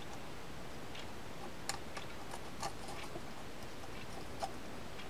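A few faint, light clicks of small metal parts of a Shimano Corsair 400 fishing reel being handled during reassembly, over a steady low hiss.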